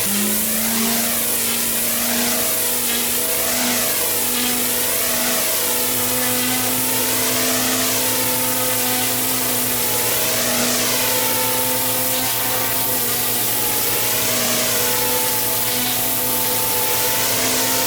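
Engine-driven pressure washer running steadily, with the hiss of its high-pressure water jet on block paving, the hiss swelling and fading as the jet sweeps back and forth.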